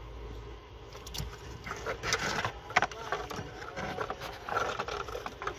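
Plastic wiring-harness connectors being handled and pulled loose by hand: scraping and rattling with a cluster of clicks, the sharpest just under three seconds in.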